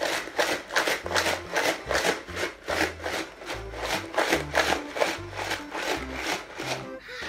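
Ice balls and salt rattling inside a lidded plastic jar shaken hard by hand, about four rattles a second, to freeze the ice-cream mix for shaken ice cream. Background music plays underneath.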